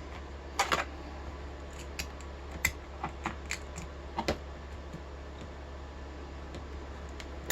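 Sharp metallic clicks and scrapes of a hand tool working against a Maxus rim cylinder lock as it tries to free a tightly fitted part, with a low steady hum underneath. The clicks come irregularly, mostly in the first half.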